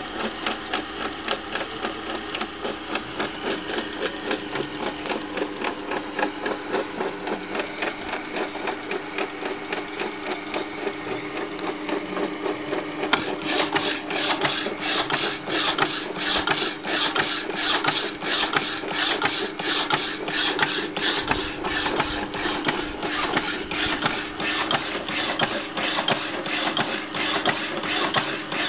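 Vintage power hacksaw, belt-driven by an electric motor, running with a steady hum under a rhythmic back-and-forth rasp as the blade strokes through stock clamped in its vise. About halfway through, the strokes grow louder and harsher.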